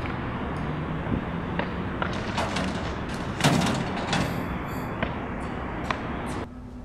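Steady outdoor background noise with scattered footstep clicks and one loud clunk about three and a half seconds in, around a metal wall bin. The background noise drops away suddenly near the end.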